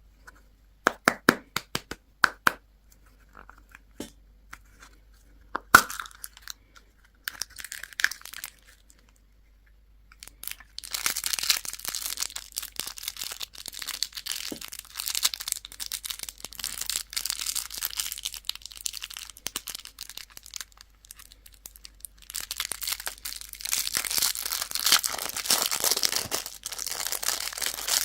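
Candy packaging being opened: sharp plastic clicks and cracks for the first ten seconds or so, then long stretches of wrapper crinkling and tearing, with a short pause a little past the twenty-second mark.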